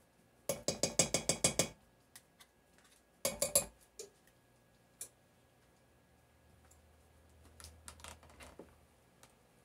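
A metal spoon tapping and scraping butter out of a plastic measuring cup into a pot: a quick run of about eight taps, a shorter run a couple of seconds later, then a few lone clinks.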